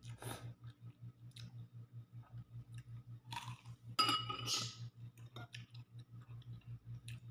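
Instant noodles being eaten close to the microphone: slurping and chewing in short spells, the loudest about four seconds in. A low hum that pulses several times a second runs underneath.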